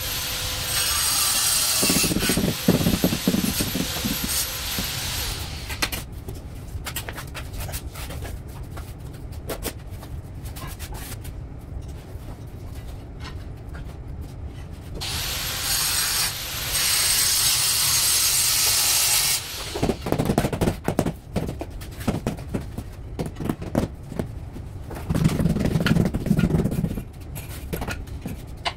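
Tile-laying work sounds: a high-pitched power tool runs twice, a few seconds each time, starting and stopping sharply. In between come irregular scrapes, clicks and knocks of tools on tile and mortar.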